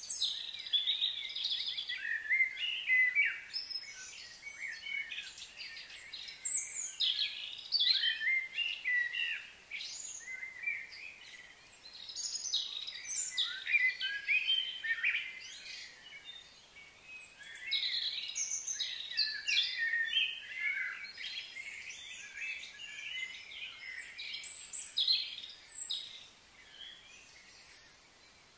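Several wild birds singing and calling: a dense, overlapping run of high chirps and whistles, easing briefly about sixteen seconds in and again near the end.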